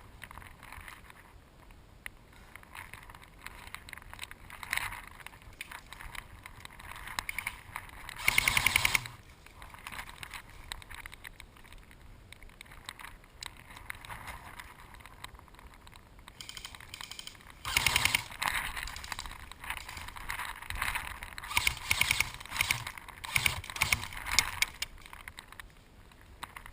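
Airsoft guns firing short bursts of rapid shots, one about eight seconds in and another near the middle, with scattered sharper cracks later, over rustling of movement through brush.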